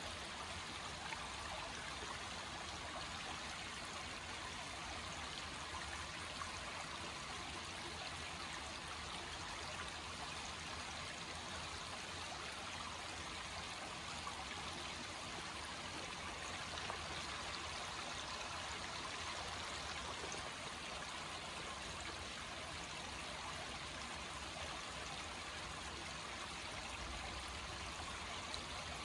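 Shallow creek rippling steadily over flat rock ledges.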